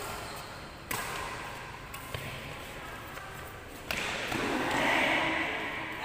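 Badminton rackets striking a shuttlecock during a fast rally: sharp cracks about a second apart, three loud and one faint, the first a jumping smash.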